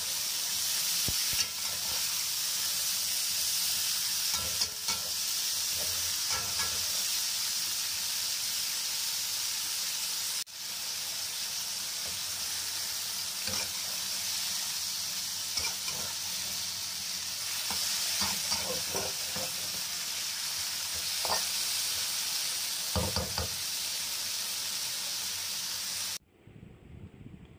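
Chopped green peppers and chilli paste sizzling in hot oil in a wok, with a metal spatula stirring and scraping the pan now and then. The sizzle cuts off abruptly near the end.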